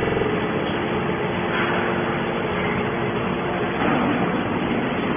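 Hydraulic scrap-metal baler line running: a steady machine hum under a continuous noisy rumble.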